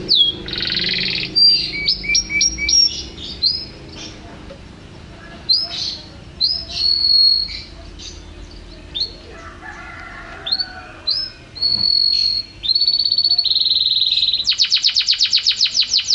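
Domestic canary singing a long, varied song of high whistled notes, quick slurs and short trills. Near the end it breaks into a fast, even trill of rapidly repeated notes.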